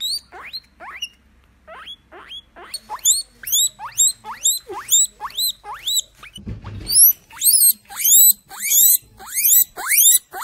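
Guinea pig wheeking, the excited squealing call typical of a guinea pig expecting food: a long run of short squeals, each rising sharply in pitch, about two a second, with a brief pause about a second in.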